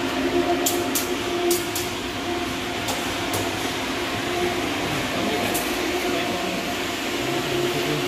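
Steady machine drone with a constant hum of several tones over a rushing noise, with a few light clicks in the first few seconds.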